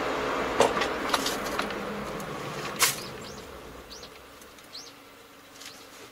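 Road and engine noise inside a car cabin, dying away as the car slows to a stop. A few sharp clicks come in the first three seconds, and short faint chirps follow.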